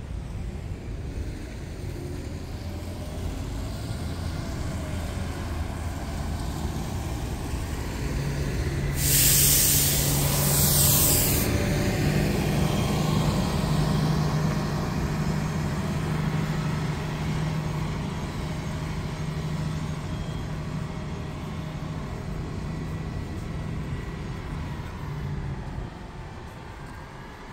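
Double-decker tour bus passing close by, its engine running with a steady hum, and about nine seconds in a loud hiss of air from its air brakes lasting a couple of seconds.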